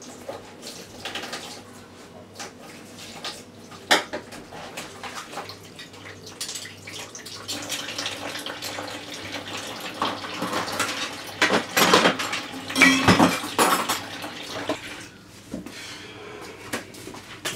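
Dishes and cutlery clinking and clattering in a kitchen sink during hand washing-up, with water splashing; the clatter is busiest and loudest about ten to fourteen seconds in.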